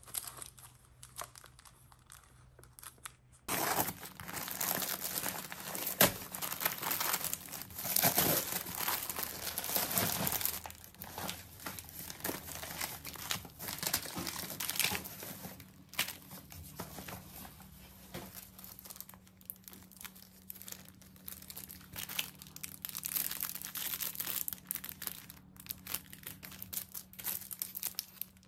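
Packaging crinkling and rustling as plastic bags and a padded paper mailer are handled and rummaged through. It starts a few seconds in, is loudest until about ten seconds, then goes on more lightly.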